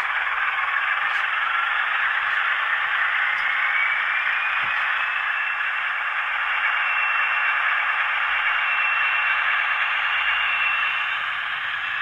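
Sound from a Heljan OO gauge Class 28 Co-Bo model's DCC sound decoder, playing a Crossley two-stroke diesel engine through the model's small onboard speaker, thin and hissy. A whine rises in pitch over the first few seconds, then holds high and steady.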